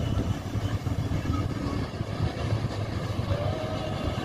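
Low, fluttering rumble of motorboat engines heard across open water, mixed with wind buffeting the microphone.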